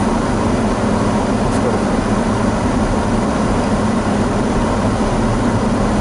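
Steady in-cabin running noise of a Daihatsu Rocky 4WD driving on packed snow: a constant low rumble of engine and tyres.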